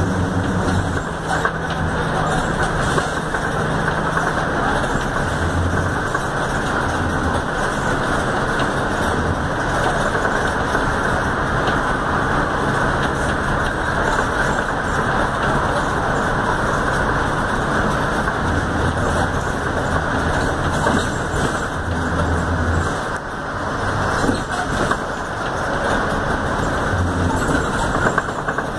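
Volkswagen 17-230 OD city bus driving, heard from inside the cabin: a steady rush of engine and road noise, with a low diesel engine hum that swells and fades several times.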